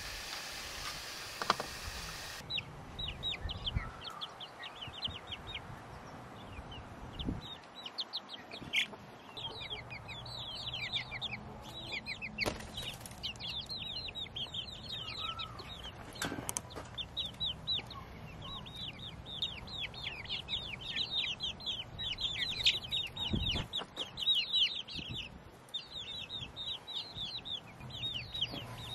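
Backyard chickens calling: dense runs of short, high, falling chirps, many a second, with a few light knocks among them. Water running at the start stops suddenly about two seconds in.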